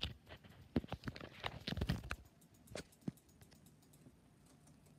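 A scattering of short knocks and bumps over the first three seconds, then only faint room noise.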